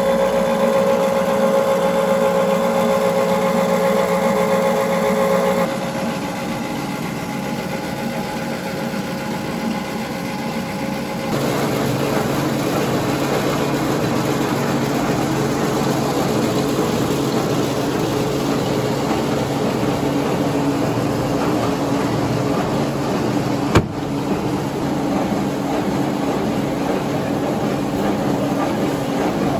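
Plastic recycling machinery running: a steady motor hum with a few held tones from the pellet-making extruder. The hum changes abruptly in pitch and loudness about six seconds in and again about eleven seconds in, and one sharp click comes about 24 seconds in.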